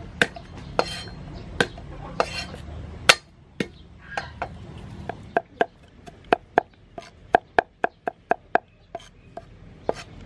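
Cleaver chopping garlic on a thick round wooden chopping block: sharp knocks, spaced out at first, then a quicker even run of about four strokes a second in the second half.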